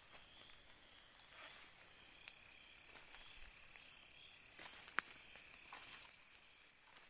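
Night-time tropical forest insect chorus: a steady high-pitched drone that swells through the middle and fades near the end. There are a few faint clicks of steps in dry leaf litter, the sharpest about five seconds in.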